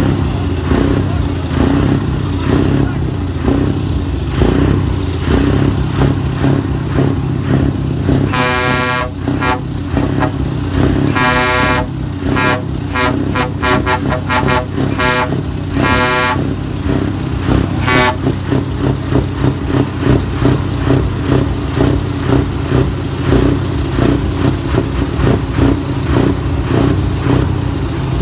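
Truck air horn: a long blast about eight seconds in, then several more blasts and a run of quick toots over the next ten seconds. Under it runs a steady low rumble of truck engines.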